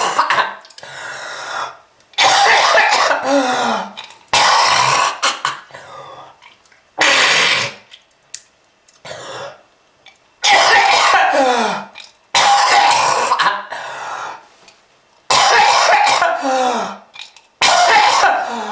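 A person coughing hard and repeatedly: about eight harsh, hacking fits roughly every two seconds, each ending in a rasping voiced sound that falls in pitch. A smoker's hacking cough.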